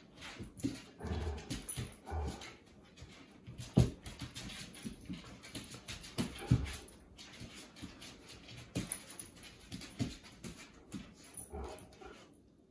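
Dogs wrestling in play: scuffling and dog vocal sounds coming in short irregular bursts, with two sharp, loud sounds about four and six and a half seconds in.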